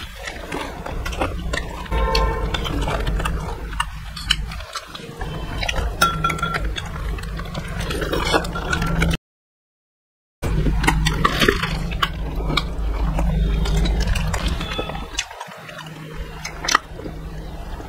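Close-miked eating sounds: biting, chewing and wet mouth noises, with clicks and clinks of a spoon against dishes. The sound cuts out completely for about a second midway.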